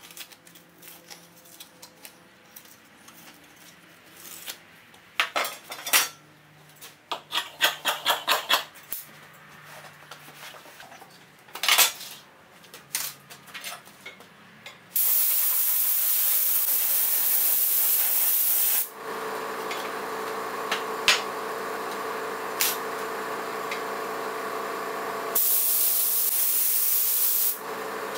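Air-fed spray glue gun spraying adhesive: a loud, even hiss for about four seconds, then a second burst of about two seconds near the end. Before the spraying there are scattered clicks and rustles of parts being handled. After the first burst a steady machine hum sets in.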